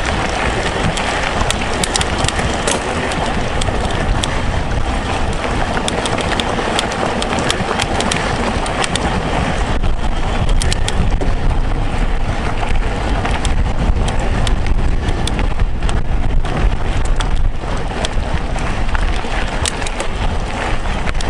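Mountain bike riding over a rough gravel track: steady tyre rumble and wind buffeting the camera's microphone, with frequent sharp clicks and rattles from stones and the bike.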